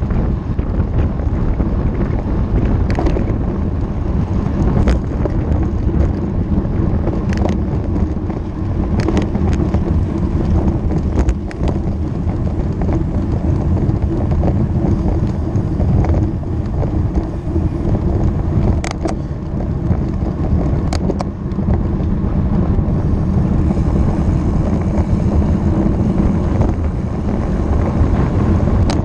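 Wind buffeting the microphone with a steady low rumble of road noise while riding a road bicycle. A few sharp clicks are scattered through it.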